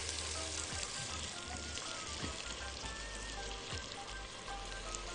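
Chopped onions sizzling in hot ghee in a pot: a steady frying hiss that keeps up evenly, with a few light clicks over it.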